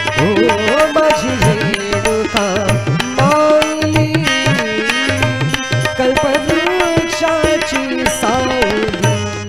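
Devotional bhajan: a male singer's voice carries a winding melody over sustained harmonium chords, with tabla playing a steady rhythm throughout.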